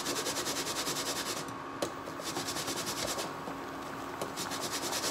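Fresh ginger root being grated on a metal grater covered with a plastic bag, in quick, even rubbing strokes, with a couple of short pauses midway.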